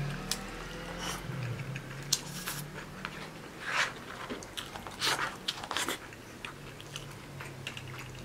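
Close-up mouth sounds of a man eating rice and pork cutlet: chewing with scattered wet smacks and clicks, a few louder ones around the middle.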